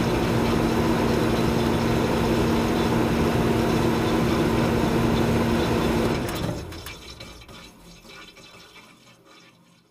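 Quadcopter drone's propellers buzzing with a steady hum and rushing noise, fading out over the last few seconds.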